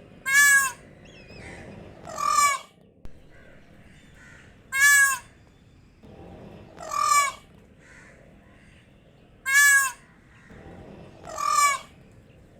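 Peacock calling loudly and repeatedly, six high calls about two seconds apart. Short calls that start abruptly alternate with ones that swell in more slowly.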